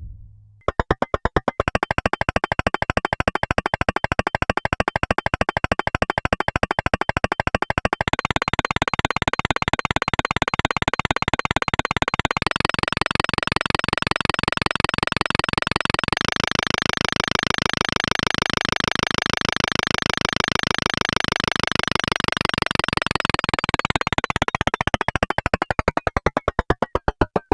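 Synthesized percussive hit sound, made entirely without recorded audio, repeating as a fast, dense train of strikes with a ringing tone. It jumps in steps to faster, higher playback, then slows and falls in pitch near the end.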